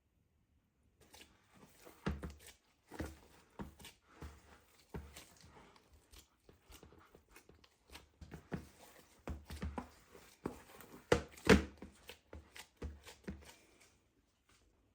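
Irregular clicks, knocks and light clatter from objects being handled, with a few louder knocks a little before the end.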